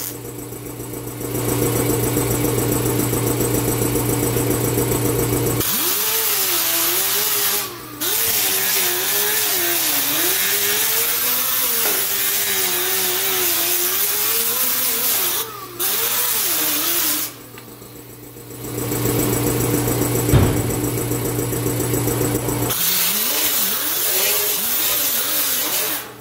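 MIG welder arc buzzing and crackling for a few seconds, then an angle grinder with a sanding disc grinding down the welds on sheet-steel body panels, its whine rising and falling as it is pressed to the metal and lifted. After a short pause comes another stretch of welding, then more grinding.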